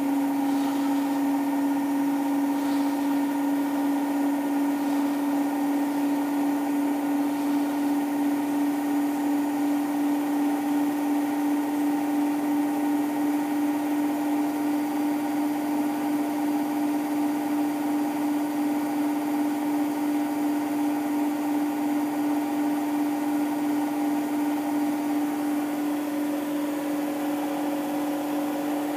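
Indesit Innex BWE91484 washing machine in its final spin, the drum held at a constant high speed: a steady whine with fainter higher tones over it and no change in pitch, easing slightly near the end. The spin is set to 1400 rpm, though the owner thinks it runs nearer 1450 to 1500 rpm.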